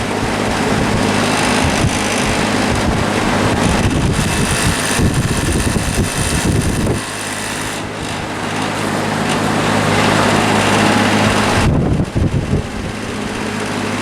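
Vintage Westinghouse all-metal box fan with a shaded-pole motor running on high: a steady motor hum under a loud rush of air, with the fan guard rattling against the frame.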